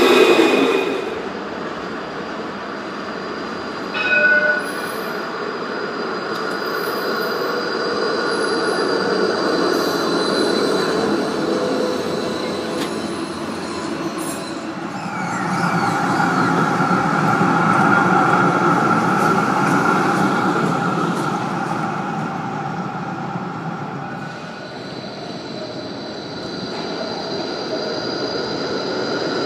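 Melbourne trams running along street track: steel wheels rolling, with steady high-pitched squeal from the wheels on the rails. The sound swells and fades as trams pass. There is a short ringing tone about four seconds in, and a louder pass from about 15 to 21 seconds.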